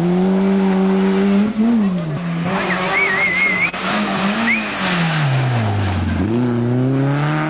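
Rally car engine at high revs. The revs hold, drop and recover briefly, then fall away to their lowest about six seconds in, as for braking into a corner, before climbing again as the car accelerates. A brief wavering high squeal comes a few seconds in.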